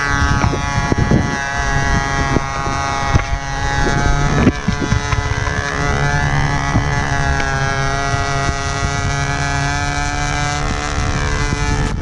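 The Enya 61 glow engine of a control-line stunt plane runs steadily in flight, its pitch wavering slightly as the plane circles. Wind buffets the microphone.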